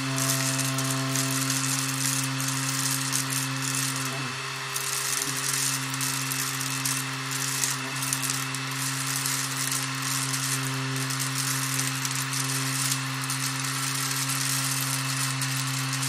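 Homemade cyclone vacuum's small 12-volt electric motor running at a steady pitch with a rushing hiss, while rolled oats rattle up the plastic tube into the collection jar. The pitch dips briefly about four seconds in.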